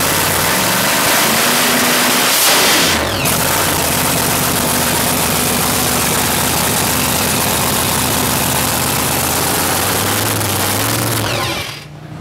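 A '57 Chevy Pro Mod drag car's engine running loud at idle through its side exhausts, with one quick blip of the throttle about two and a half seconds in. The sound cuts off abruptly just before the end.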